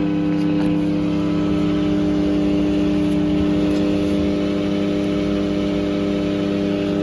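LG microwave oven running with a steady loud hum while it fails to heat. The hum and a smell of burnt plastic are the signs of a failed 2M213-09B 700 W magnetron, which the owner takes to be the fault.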